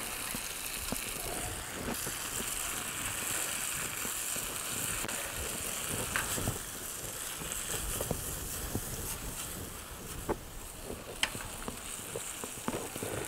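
Macaroni and tomato sauce sizzling in a frying pan on a portable gas stove, while a wooden spatula stirs them, with a few light knocks against the pan in the second half.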